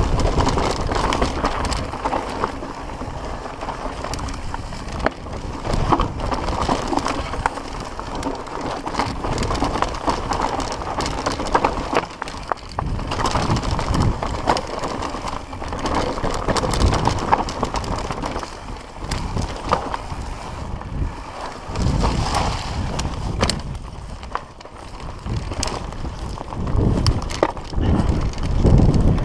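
Mountain bike riding fast down a rough dirt trail: tyres rolling over dirt and rocks, with frequent clicks and rattles from the chain and components over bumps. Wind buffets the microphone in low rumbles, heaviest near the end.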